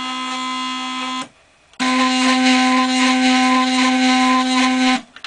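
Stepper motors of a homemade CNC plotter whining at one steady pitch as they drive the axes on pulses from a signal generator. They stop for about half a second a little over a second in, start again at the same pitch, and cut off near the end.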